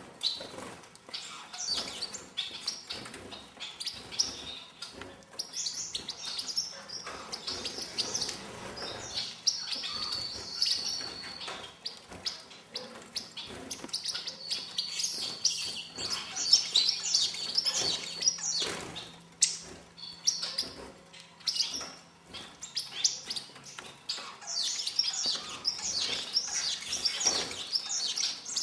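A group of caged star finches calling with many short, high chirps, overlapping almost without a break, with scattered light clicks among them.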